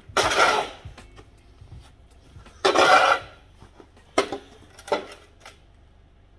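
Snow shovel blade scraping along a snow-covered paved driveway twice, each push under a second long, followed by two short knocks.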